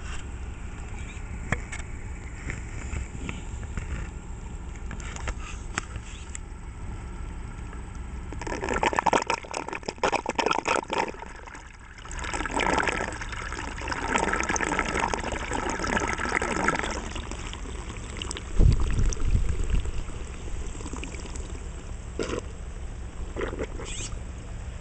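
Water trickling and gurgling in an aquaponics bell siphon, louder in two spells through the middle, over a steady low hum. A single heavy low thump comes a little past three-quarters of the way through.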